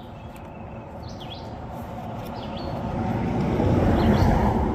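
Low rumbling noise that grows steadily louder over about four seconds, with small birds chirping several times over it.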